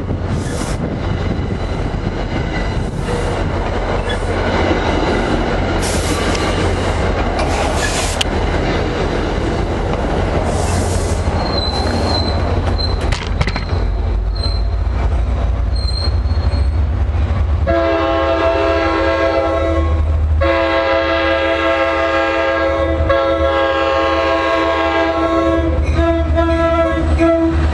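A New Jersey Transit diesel-hauled train rumbles past with wheels clattering and a thin high wheel squeal. Then, about two-thirds of the way in, a locomotive's multi-note air horn sounds a chord in several long blasts with short breaks between them.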